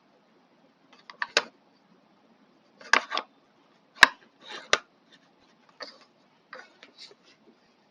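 Irregular clicks and knocks of small plastic trimmer parts being handled and fitted together, the sharpest click about four seconds in.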